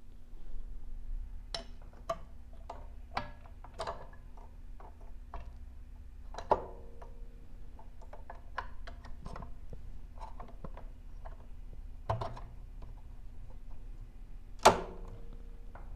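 Irregular clicks and knocks of a cover being fitted back onto a LI-3050C belt conveyor's upper pulley assembly by hand. A couple of the knocks ring briefly, and the loudest comes near the end.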